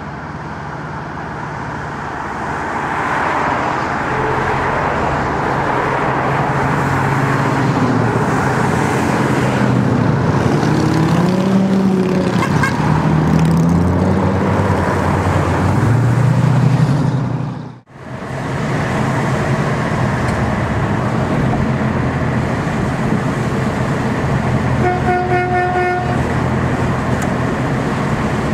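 Cars in a convoy driving, with road noise and engines rising and falling in pitch as they are revved. Near the end a car horn sounds one steady toot lasting about a second.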